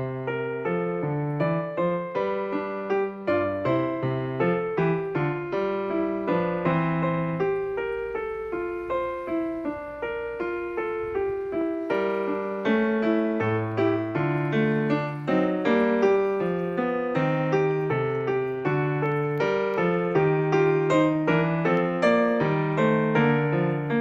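Background piano music: a continuous flowing run of piano notes with no speech.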